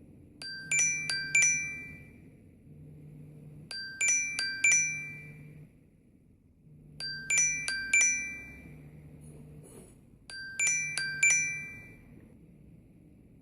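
iPhone ringtone: a bright chime figure of four quick glockenspiel-like notes, repeated four times at about three-second intervals.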